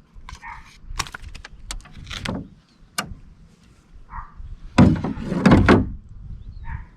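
Sharp knocks and clatter of handling on a small fishing boat. A louder run of thumps comes about five seconds in.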